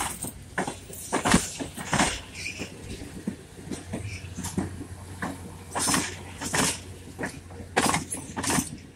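Steel wheels of slow-rolling passenger cars clacking over a rail joint: the clacks come in pairs about two-thirds of a second apart, one pair per truck, with a few seconds between trucks.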